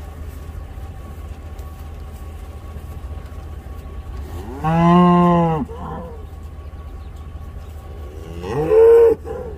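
Black Angus cattle mooing: two loud moos, one about halfway through lasting about a second, and a second, rising then falling in pitch, near the end.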